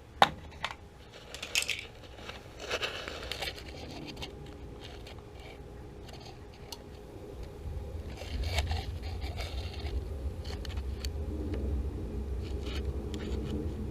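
Sharp clicks and scraping as tools and parts are handled, the loudest a single click just after the start. A low steady rumble sets in about halfway through.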